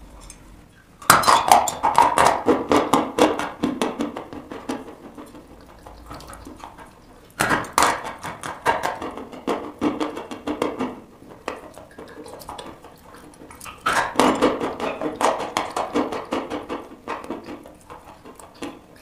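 Dry white chalk crunching between the teeth at close range: three bites, about a second, seven seconds and fourteen seconds in, each a sharp crack followed by several seconds of gritty chewing that gradually fades.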